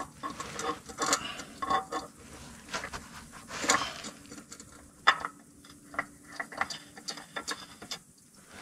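New spin-on oil filter being threaded onto its mount and turned by hand: irregular small clicks and scrapes of the canister and hands against the mount.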